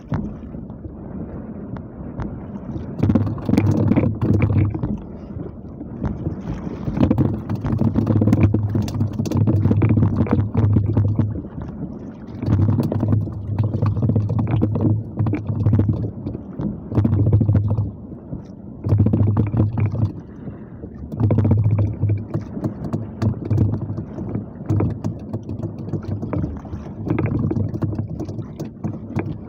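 Wind rumbling on the microphone in irregular gusts, over water sloshing against the hull of a small outrigger fishing boat on choppy sea.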